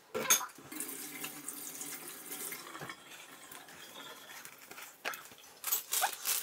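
Water running from a tap, with a sharp knock just after the start and a few sharp clatters near the end.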